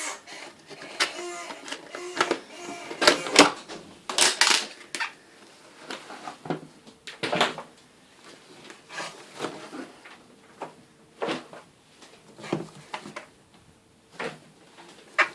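Irregular knocks, clicks and rustling of things being handled, like lids, drawers or cupboard doors, with the loudest knocks in the first half.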